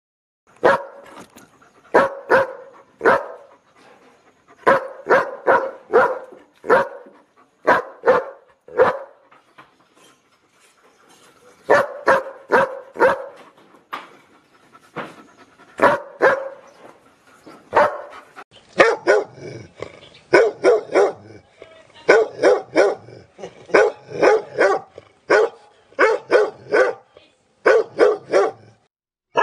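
Several dogs barking one after another in short runs of a few barks with pauses between: first a dachshund's barks, then a German Shepherd's. In the last third a dog barks deeper and steadily, about two barks a second.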